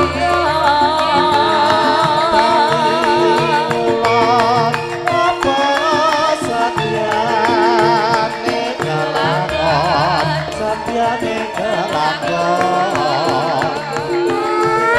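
Javanese gamelan (karawitan) music with a female sinden singing a wavering, ornamented vocal line over the ensemble's steady ringing tones.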